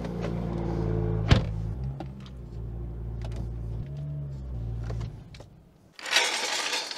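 BMW M2's turbocharged straight-six running at low revs as the car creeps up onto a rubber tire cushion, with a sharp click about a second in and a brief rise in engine pitch near the middle; the engine stops about five seconds in. Near the end there is a short rattling rush as the steel floor jack is pulled across the tile floor.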